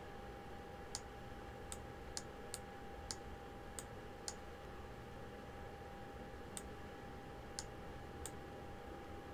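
Computer mouse clicking: about ten light, separate clicks at uneven intervals, with a pause of about two seconds midway, over a faint steady tone.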